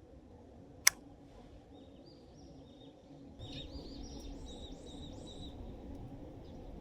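A songbird singing a long run of quick, repeated high chirping notes, over steady low background noise. A single sharp click sounds about a second in.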